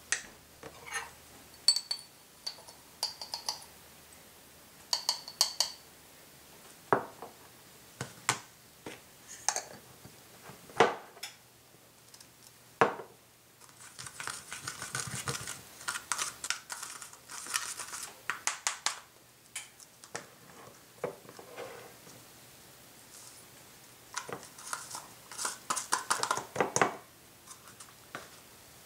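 Metal measuring spoon scraping and clinking against a small plastic tub as gypsum powder and cornstarch are stirred, in two spells of quick strokes, the first starting about halfway through. Before that, scattered single clicks and knocks of a jar and spoon being handled on the counter.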